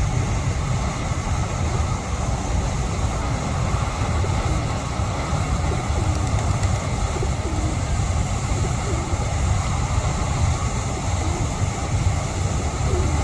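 Pigeons cooing, several soft coos scattered through, over a loud steady low rumble.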